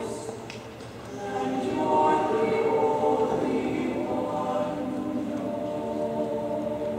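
High school choir singing unaccompanied, holding sustained chords. The sound thins briefly about a second in, then swells again.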